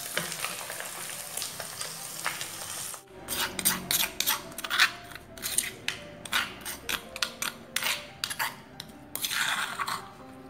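Hot oil sizzling in a wok as fried chicken livers and gizzards are lifted out. About three seconds in it changes to a pestle grinding chilies, shallots and garlic in a stone mortar: quick sharp strokes, roughly three a second, ending in a longer scrape near the end.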